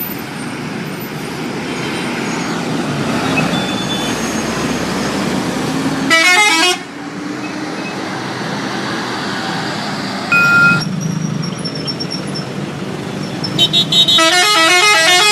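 Bus telolet horn, a multi-trumpet musical horn, playing a quick run of stepping notes about six seconds in and a longer run of notes near the end, with a short two-tone horn blast in between, over steady traffic and bus engine rumble.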